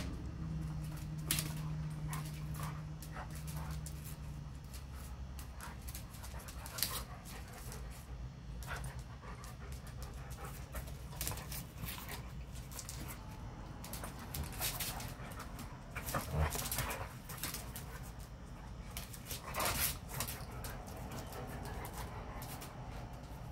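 A black Labradoodle and a German Shepherd play-fighting: mouthing and scuffling with panting and short, irregular sharp noises. A steady low hum sounds for the first four seconds, then fades.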